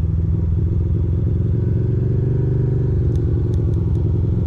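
2006 Ducati Monster 620's air-cooled V-twin running at low riding speed, heard from the rider's seat. Its note swells and eases back off about halfway through.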